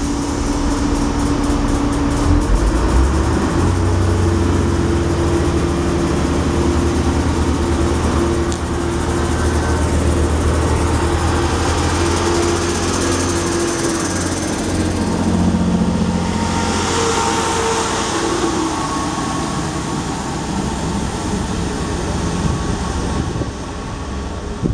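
Class 158 diesel multiple unit's underfloor diesel engines running as it pulls away from the platform. The engine note steps up about two seconds in and holds steady while the carriages pass close by, then the train draws away.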